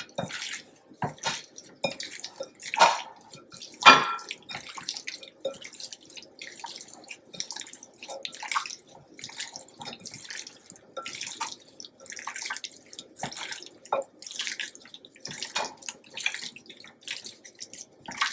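Gloved hand massaging spice rub into raw chicken thighs in a glass bowl: irregular wet squelching and slapping of the meat and skin, with a couple of louder smacks about three and four seconds in.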